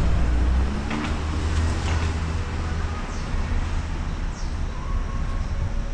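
Steady low rumble of vehicle engines and road traffic, with a few light clicks from handling a folded power wheelchair.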